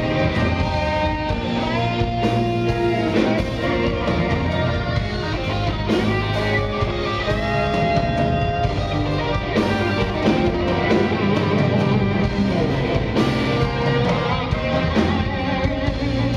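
Live rock band playing, led by an electric guitar solo of held, bent notes that slide up in pitch, over keyboards, bass and drums.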